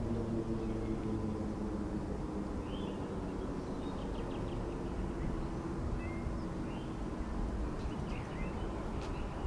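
Distant outdoor warning sirens across town sounding a steady tone during a monthly tornado siren test, fading away over the first few seconds, with birds chirping a few times. The nearby siren stays silent because it failed to activate.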